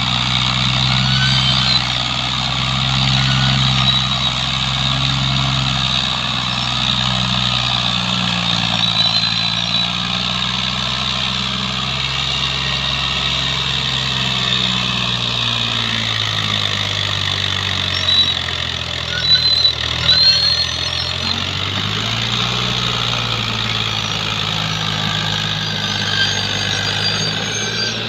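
Fiat 480 tractor's three-cylinder diesel engine labouring as it pulls a heavily loaded sugar cane trolley, its pitch dipping and then rising again. A few brief loud knocks come about two-thirds of the way through.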